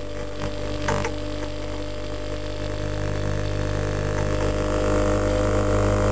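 Brushless permanent-magnet motor under STM32 field-oriented control, spinning steadily at about 3,000 rpm. It gives a whine of several steady tones over a low hum, with a short tap about a second in.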